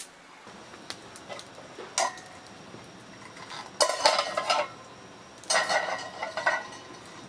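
Metal cooking utensils and cookware clinking and clattering: a few light knocks in the first two seconds, then two longer rattling bursts about four and six seconds in.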